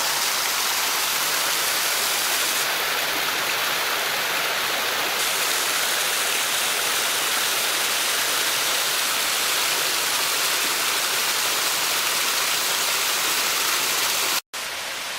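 Codornices Creek pouring through its canyon and over a waterfall: a steady rush of water noise. It breaks off for an instant near the end and comes back slightly quieter.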